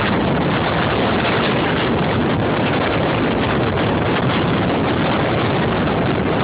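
Steady loud rush of wind buffeting the microphone over big sea waves breaking at high tide.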